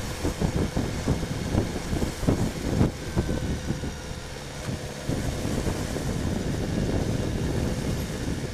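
BMW S1000R inline-four motorcycle engine running at low speed in slow city traffic. It rumbles unevenly for the first few seconds, dips briefly about four seconds in, then settles to a steady run.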